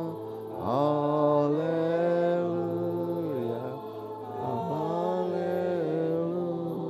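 A man chanting slowly, holding long notes and sliding from one pitch to the next: the priest singing the Gospel acclamation.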